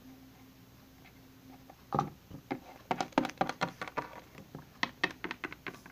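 Quick, irregular run of light taps and clicks from a small plastic toy figure being hopped along a tabletop as footsteps, starting about two seconds in and stopping just before the end.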